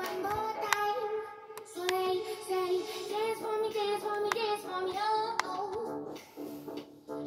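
A song playing: a high singing voice over a beat with sharp, regular clicks.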